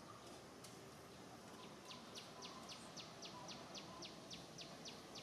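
A bird calling in a rapid series of short, high, downward-sweeping chirps, about five a second, starting about two seconds in, over faint outdoor hiss.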